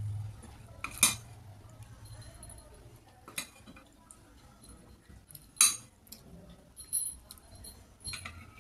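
Metal spoon clinking and scraping against a ceramic bowl while curry is scooped out: about five sharp, separate clinks, the loudest about a second in and another a little past the middle.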